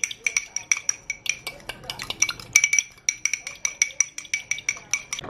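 A utensil beating ingredients in a mixing bowl: quick, even clinks about five or six a second, the bowl ringing at the same pitch with each stroke, stopping suddenly near the end.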